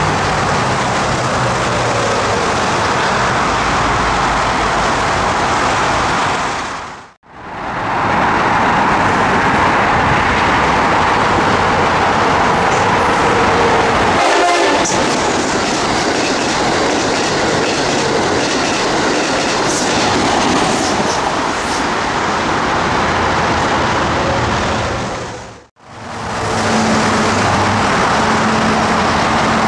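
Trains passing through a station, with two brief drop-outs where the recording is cut. First a Metro-North M8 electric train runs through. Then an Amtrak Acela high-speed train rushes past with wheel clatter, and near the end another M8 approaches, sounding its horn.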